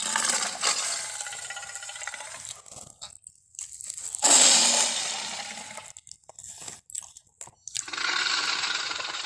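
Tyrannosaurus rex sound effects: three long, loud creature calls with a pitched, layered tone, the middle one the loudest, with a few short sharp clicks between the second and third.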